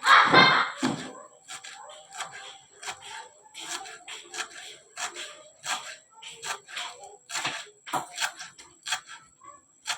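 Kitchen knife chopping vegetables on a cutting board: a run of short, uneven knocks, about one or two a second.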